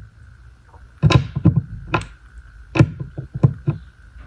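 Steel tips of long nose slip joint pliers clicking and tapping against a coin and the surface under it in repeated attempts to grip it: about a dozen sharp, irregular clicks starting about a second in.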